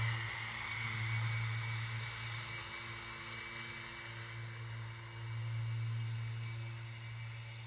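Battery-powered Ryobi 80-volt zero-turn riding mower running with its mulching blades spinning, mulching fallen leaves: a steady hum with a hiss over it. It fades as the mower drives away, swells again a little past the middle, then falls off.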